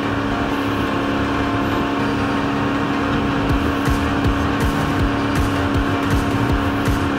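A boat's motor running at a steady high speed, holding one even drone, over a rush of wind and water with irregular low thumps.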